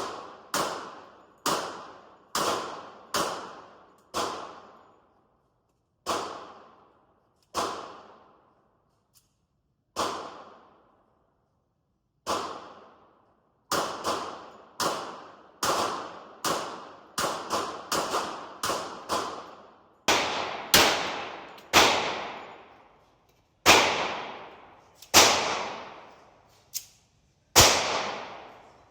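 Gunshots fired one at a time in an indoor range, each with a short echoing tail. About two dozen shots, spaced a second or two apart at first, then coming quicker and louder in the second half.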